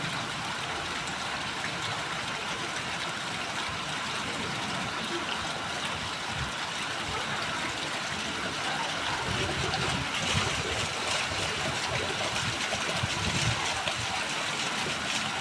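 Heavy rain with running water rushing steadily, growing a little louder about ten seconds in.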